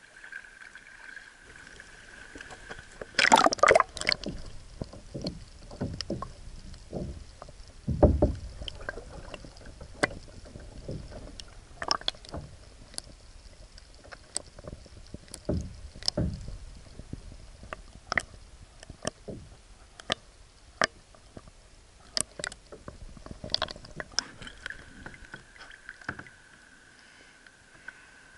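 A camera plunging into shallow seawater with a splash about three seconds in, then underwater sound: scattered sharp clicks and a few dull knocks. It comes back out with another splash near the end.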